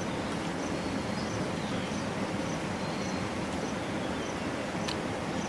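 Steady outdoor ambience with a low rumble, over which a faint high chirp repeats every second or so; one sharp click about five seconds in.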